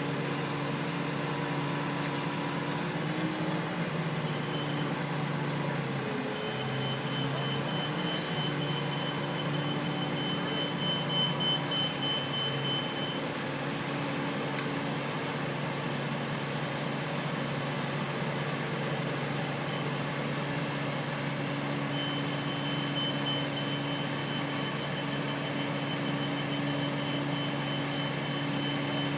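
Heavy equipment engine, most likely the crane's, running at a steady speed with a constant low hum. A faint thin high whine comes and goes over it.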